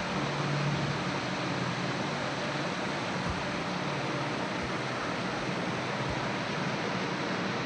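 Electric fan running steadily: a constant rush of air with a faint low hum underneath.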